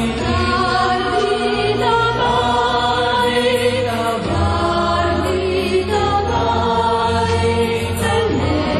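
Background choral music: a choir singing slow, sustained chords over a steady low bass, the chords changing every second or two.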